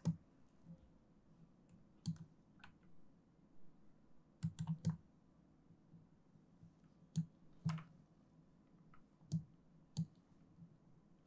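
Faint, scattered clicks of a computer mouse and keyboard, about ten in all, some coming in quick twos and threes, as buttons and shortcut keys are pressed.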